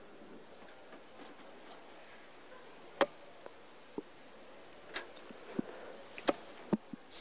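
Three darts thudding into a Nodor sisal bristle dartboard, one every one and a half to two seconds, with a few fainter clicks between them.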